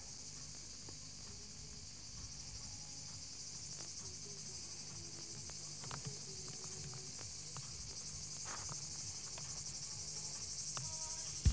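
Insects chirring in a steady, high-pitched, finely pulsing chorus that grows slightly louder toward the end, over a low rumble.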